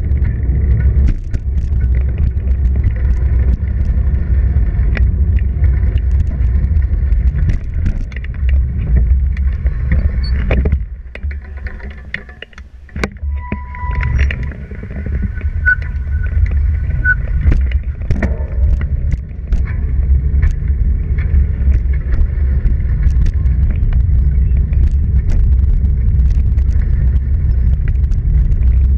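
Wind rumbling across the microphone of a camera on a moving bicycle, with frequent clicks and rattles from the bike and its handlebar bag over the pavement. The rumble drops away for a few seconds in the middle, where a few short high squeaks sound.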